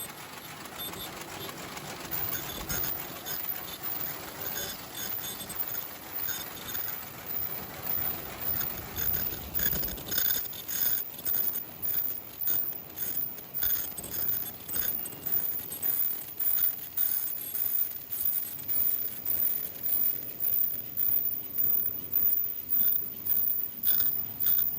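B220 square-bottom paper bag making machine running, its mechanism cycling in an even, clattering rhythm of about two beats a second that grows more distinct about halfway through.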